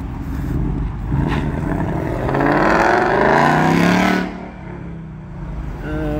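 Car engine accelerating hard, its revs climbing in pitch for about two seconds before dropping away suddenly, with engine noise around it.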